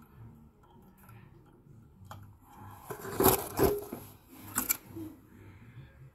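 Handling noise from a gloved hand working with a heat pump's control board: a light click about two seconds in, then two short bursts of rustling and scraping a second or so apart.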